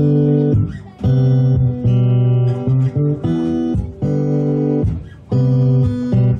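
Instrumental intro of a live folk-pop song: acoustic guitar chords over electric bass, in held phrases that break off sharply several times before the singing begins.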